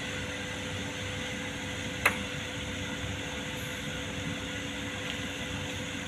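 Steady background hum, with one sharp click about two seconds in as the small plastic and metal parts of a car door lock actuator are handled.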